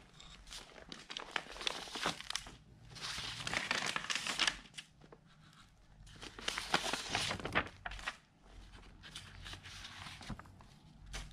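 Sheets of paper rustling and crinkling as a hand shuffles through and lifts a pile of loose documents, with louder spells about three and again about six seconds in.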